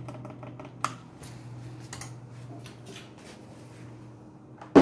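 Amana PTAC air-conditioner unit running with a steady low hum and a few light clicks, switched over to heat. Right at the end a sudden loud sound cuts in.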